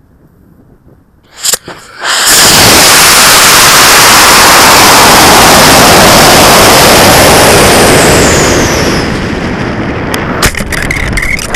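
Madcow 4-inch Super Batray high-power rocket lifting off, heard from the camera on board: two sharp pops about a second and a half in, then the motor lights into a loud, distorted roar mixed with rushing air. About eight seconds in it eases to a lower rush of wind, with a few sharp knocks near the end.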